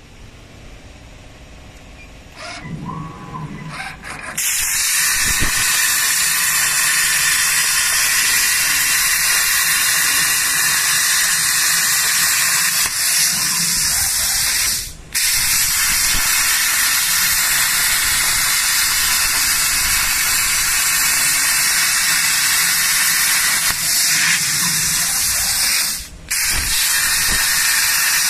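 CNC plasma cutter's torch cutting circular holes in steel plate: a loud, steady hiss that starts about four seconds in and cuts out briefly twice.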